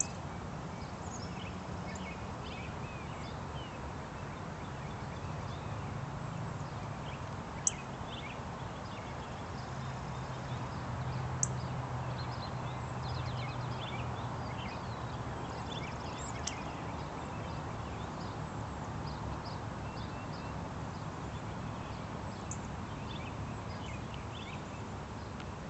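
Small songbirds chirping in many short, high calls scattered throughout, over a steady low background rumble, with two sharp clicks partway through.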